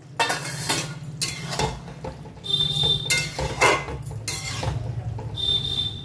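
A metal spoon scraping and clinking against a metal kadai as a thick vegetable curry is stirred and mixed, in irregular strokes, with a brief metallic ring twice.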